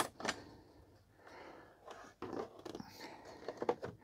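A sharp click as a plastic wiring connector is pulled from the TV's circuit board. Then quiet scattered taps, clicks and rustles as the TV's plastic back cover is shifted by hand.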